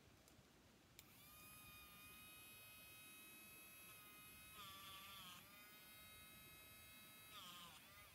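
Jakar battery-operated eraser switching on with a click about a second in, then whirring with a steady high whine. Twice its pitch dips and wavers as the spinning eraser bears on the paper.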